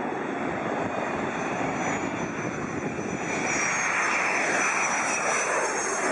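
Airplane engine noise, a steady rush that grows a little louder about halfway through, with a thin high whine coming in over it.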